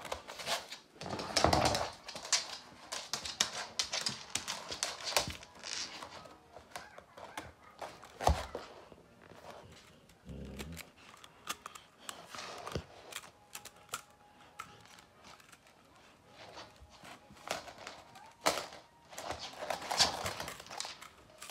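Irregular clicks and rustling of a Samoyed's fur and mouth against a hand close to the microphone as the dog is played with, in short spells with quieter gaps around the middle.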